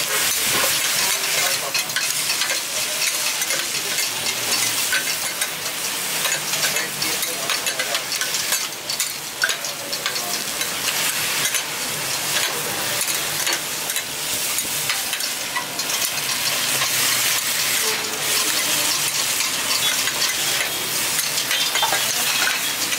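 Yakisoba noodles and cabbage sizzling on a hot flat-top griddle as a metal spatula turns and tosses them. Frequent sharp scrapes and clicks of the steel spatula on the griddle run over a steady frying hiss.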